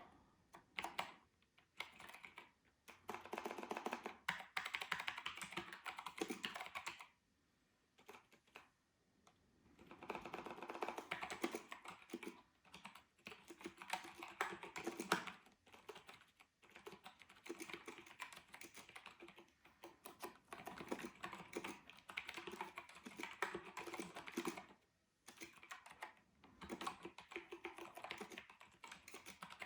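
Typing on an Apple Adjustable Keyboard: fast runs of key clicks as the freshly cleaned keyboard's keys are tested. The typing stops for a couple of seconds around seven seconds in, then again briefly later on.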